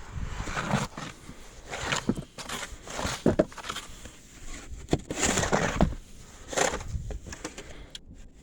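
Irregular crunching and rustling, like footsteps pressing into deep fresh snow, about a foot deep.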